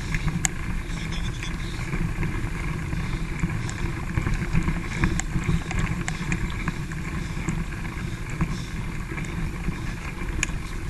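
Wind rumble on the microphone of a camera riding on a mountain bike, with the bike rattling over a rough dirt trail in scattered clicks and knocks.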